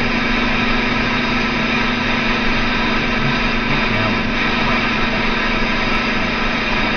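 A steady engine running, with an even noise and a constant hum that do not change.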